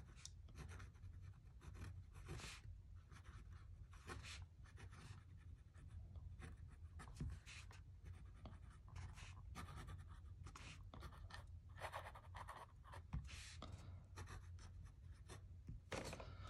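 Fine nib of a Waterman Expert fountain pen scratching faintly across notebook paper as a sentence is written, in many short, irregular strokes and lifts.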